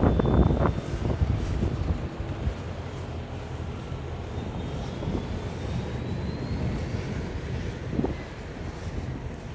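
Road traffic on a busy city street: a vehicle goes by loudly at the start and fades away, leaving a steady low rumble of traffic with a faint rising whine in the middle and a brief bump near the end.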